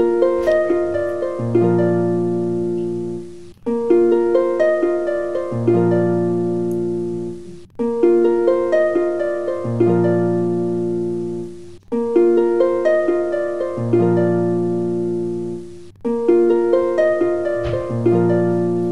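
Background music: a plucked-string tune, a short phrase of notes that restarts about every four seconds.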